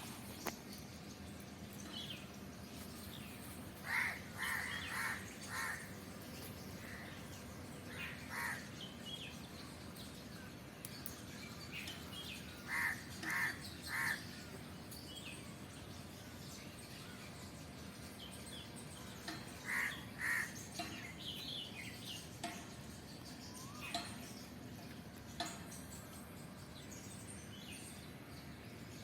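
Crows cawing in four series of two to four calls each, spaced several seconds apart, over a steady background hiss.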